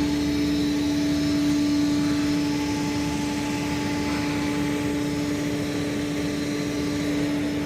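Steady machine drone with a strong, constant hum.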